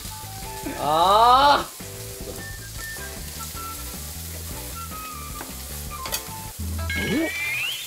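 Beef sizzling on an electric tabletop grill, a steady frying hiss throughout. A loud shout of "ah" about a second in, and a rising exclamation near the end.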